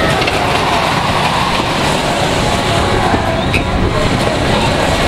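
Firestorm half-pipe ride running, its loaded car rolling along the curved track with a steady rumble, over crowd chatter.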